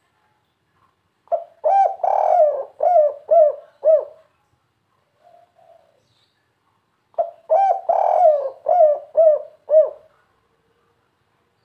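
Spotted dove (derkuku) cooing in the 'kuk 3' style: two phrases about six seconds apart, each a short lead note and a long coo followed by three short, separate 'kuk' notes. A faint, soft coo sounds between the two phrases.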